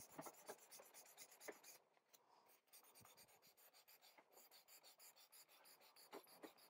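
Faint, rapid back-and-forth scratching of fine-grit wet/dry sandpaper (about 400 grit) rubbed over a glossy magazine page, with a brief lull about two seconds in.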